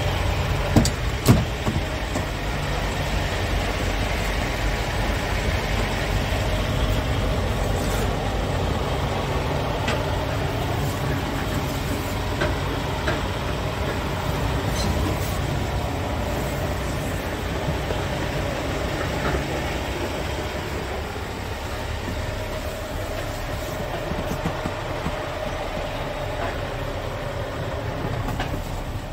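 Scania R tractor unit's diesel engine idling steadily, with two sharp knocks about a second in.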